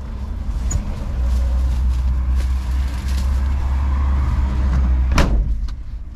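An old car's engine heard from inside the cabin, a heavy low drone building from about a second in as the car pulls under load. A single sharp knock about five seconds in, after which the engine note drops.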